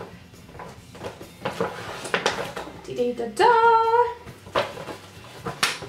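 Cosmetics packaging and jars being handled: light clicks, knocks and rustles on and off. About three and a half seconds in comes a woman's short held hummed note, the loudest sound.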